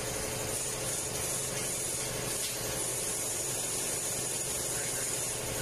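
Steady hiss with a faint low hum underneath and no distinct knocks or clicks.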